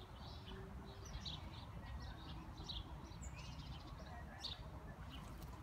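Small birds chirping: short high chirps come irregularly, several a second at times, over a steady low background noise.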